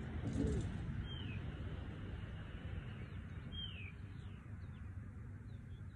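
A songbird calling: a short high note sliding downward, repeated about every two and a half seconds, with a few fainter chirps from other birds. Underneath runs a steady low rumble, with a brief louder noise just after the start.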